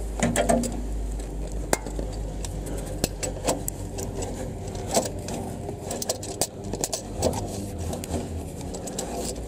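Irregular light metallic clinks and knocks from a claw-type oil filter wrench being worked against engine parts, with glove rubbing close to the microphone.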